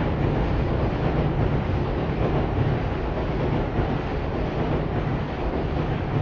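Steady city traffic noise at a busy street crossing: a continuous low rumble with hiss over it and no distinct individual events.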